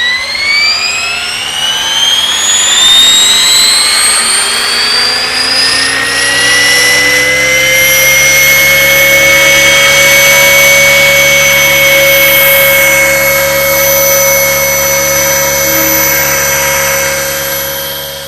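Align T-Rex 600 RC helicopter spooling up, its whine rising steadily in pitch over the first several seconds, then holding at a steady high whine at full head speed.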